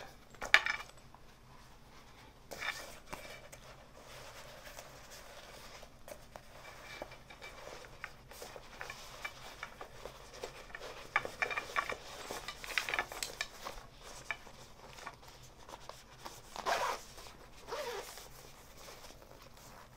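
Handling of a polyester toilet-paper roll case: the roll is taken out and refitted, the fabric rustles, and the case's zipper is run in several short rasps.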